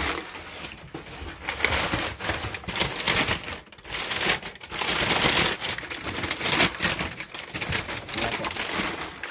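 Brown kraft packing paper rustling and crinkling, handled in uneven handfuls and pulled out of a cardboard box.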